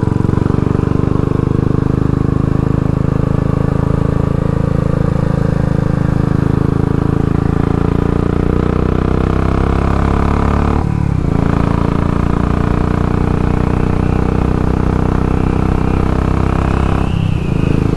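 Royal Enfield Classic 500's single-cylinder engine running steadily under way on the road. The note breaks briefly twice, about two-thirds of the way through and again near the end.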